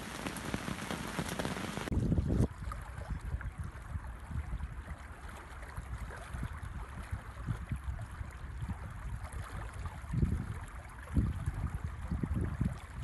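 Heavy rain pattering steadily on the lake and the bank. About two seconds in it cuts off abruptly, giving way to a quieter outdoor hush with irregular low gusts of wind buffeting the microphone.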